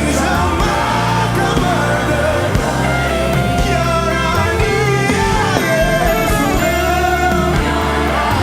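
Live worship music: a band playing a slow song with sustained bass and keyboard chords and a wordless sung or instrumental melody line over them.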